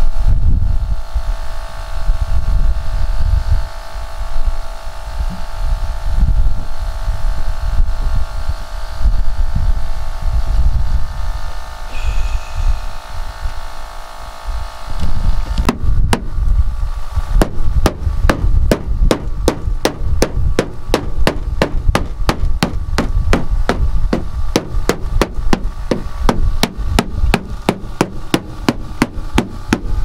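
A rubber mallet tapping on a school bus's steel side panel, rapid even blows about three a second starting about halfway through, knocking down the high spots around a dent that air pressure behind the panel is pushing out so it won't pop back in. A steady machine hum, from the air compressor, runs underneath.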